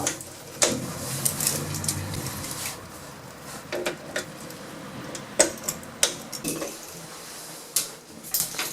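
Lift car doors sliding open, with a low hum over the first couple of seconds, then scattered clicks and knocks.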